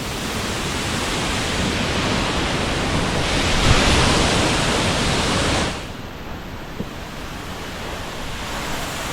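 Steady rushing roar of a waterfall. It grows louder through the first half and then drops off suddenly about six seconds in.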